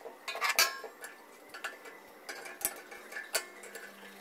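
Metal clinks and knocks from handling a stainless steel single-burner gas stove, its pan-support arms and cast iron burner being set in place. A string of sharp taps, the loudest a little over half a second in, some leaving a brief metallic ring.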